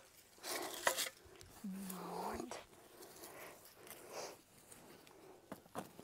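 Hands digging and scraping through dry, loose soil to uncover potatoes, in repeated bursts of scraping and crumbling earth. A short low humming tone sounds about two seconds in.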